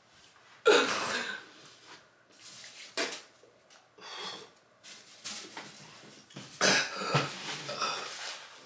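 A man coughing in sharp fits: one about a second in, another around three seconds, then a run of coughs near the end. He is reacting to a gulp of a thick, foul-tasting mixed drink.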